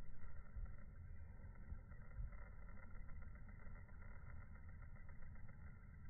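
Faint, steady low rumble of outdoor background noise, with no distinct event standing out.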